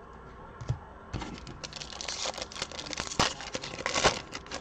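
Foil wrapper of a Prizm basketball card pack being torn open and crinkled by hand: a dense crackling full of small clicks that starts about a second in and runs nearly to the end, with a single knock shortly before it.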